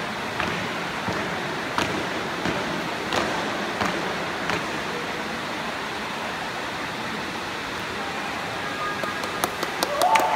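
Steady crowd noise in a sports hall, with a few sharp claps or stamps scattered through the first half. Near the end, voices rise into loud shouting.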